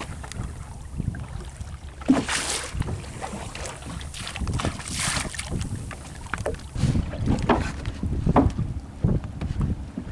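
Wind buffeting the microphone over open sea, with water sloshing against the side of a small fishing boat; two louder splashes come about two and five seconds in.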